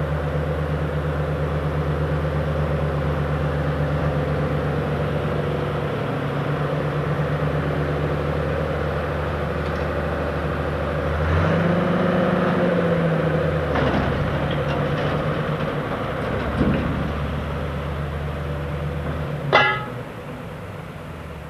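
Tractor engine running steadily while the hydraulic tipping trailer unloads grass silage, its note shifting about halfway through. A short, sharp sound stands out near the end, after which the engine is quieter.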